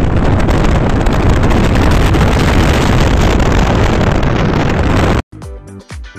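Loud wind rushing over the microphone with road noise from a car moving at highway speed, cutting off abruptly about five seconds in.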